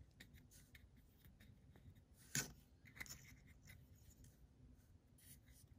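Near silence with faint clicks and light rubbing of fingers handling a plastic Gatorade bottle cap, and one sharper click about two and a half seconds in.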